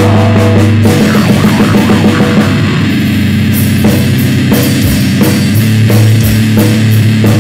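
Noisecore band recording: loud, heavily distorted electric guitar and bass over drums with frequent cymbal hits, dense and continuous.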